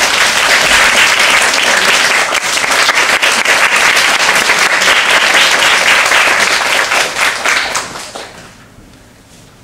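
Audience applauding, the clapping fading out about eight seconds in.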